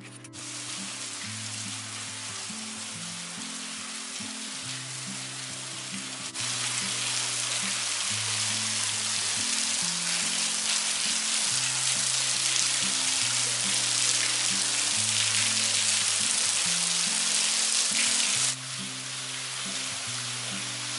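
Steady hiss of a thin waterfall splashing down a sandstone rock face. It grows louder about six seconds in and drops back a couple of seconds before the end, with soft background music under it.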